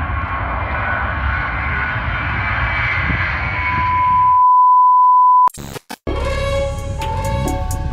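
Jet engine noise from a Ryanair Boeing 737 on the runway, growing louder, cut off about four and a half seconds in by a steady high test-tone beep. After a few glitchy clicks and two short dropouts, music begins about six seconds in.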